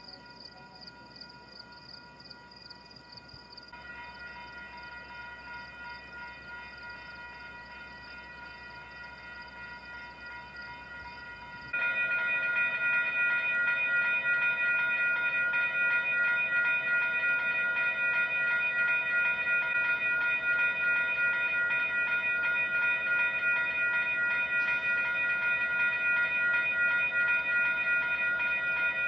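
Railroad crossing warning bell ringing continuously: the crossing signal stays active while a stopped freight train blocks the crossing. It is a steady ringing of several high tones that gets much louder about twelve seconds in.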